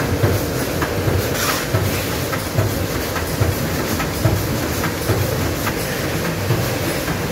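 Automatic vertical form-fill-seal pouch-packing machine for bhujia running: a steady mechanical hum with a regular clack a little more than once a second as it cycles through bags.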